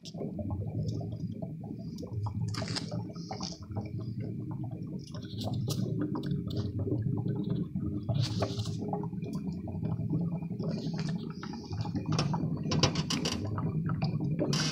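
Water-contaminated hydraulic oil bubbling and crackling under vacuum as the water boils off, with irregular pops over a steady low mechanical running noise.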